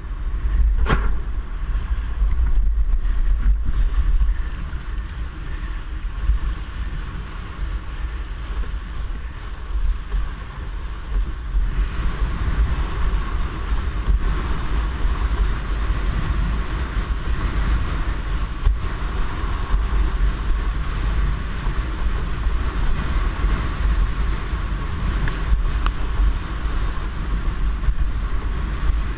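Wind buffeting the microphone of a boom-mounted camera with a steady low rumble, over the hiss and splash of sea water rushing past a windsurf board under sail. The rumble is loudest for a few seconds near the start.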